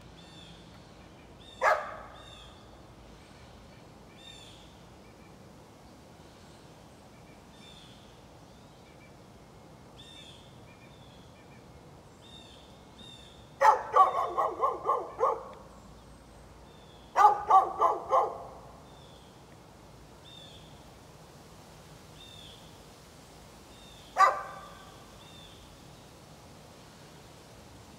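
A dog barking: one bark about two seconds in, two quick runs of several barks each around 14 and 17 seconds in, then one more single bark near the end.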